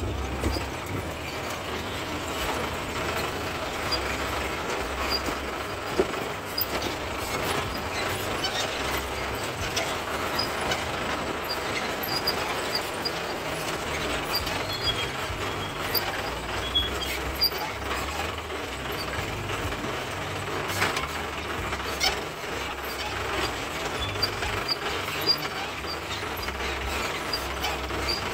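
CJ 550 jeep driving over a rough dirt track: the engine runs with a steady low rumble under the constant rattle and clatter of the open body, with frequent sharp knocks.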